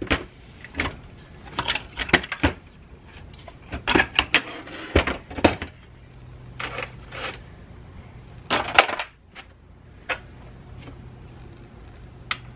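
Irregular clicks, knocks and clatter of hard objects being picked up and set down. A faint steady low hum joins about five seconds in.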